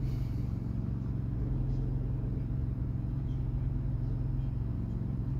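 A steady low hum with no breaks, strongest at a low pitch, a constant background drone.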